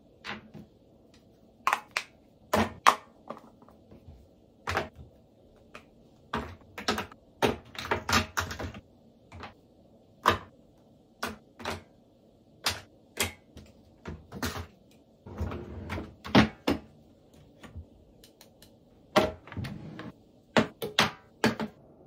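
Makeup products and brushes being tidied away on a vanity top: irregular clicks, taps and knocks as compacts, bottles and brushes are picked up and set down, with a brief scraping about fifteen seconds in.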